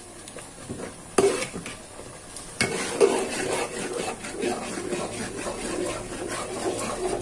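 A spatula stirs thick, simmering tamarind pulp in an aluminium pot, scraping and sloshing through the paste, with a few sharp knocks against the pot's side.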